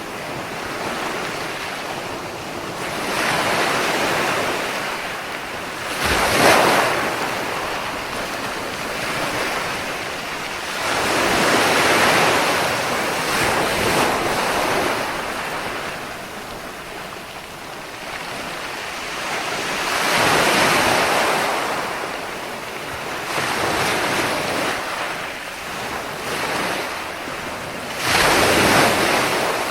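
Ocean waves breaking and washing on a shore, the surf swelling and falling back every several seconds, with a sharp surge about six seconds in and the loudest one near the end.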